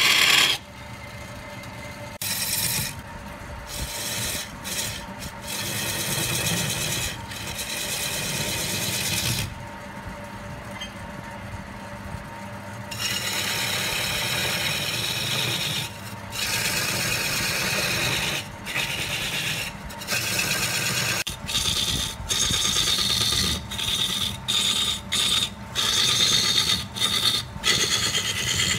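Wood lathe turning a log blank while a gouge cuts into the spinning wood, making bursts of scraping, shaving noise that stop and start, over a steady hum from the lathe. From about two-thirds of the way through, the cuts come as short, quick strokes several times a second.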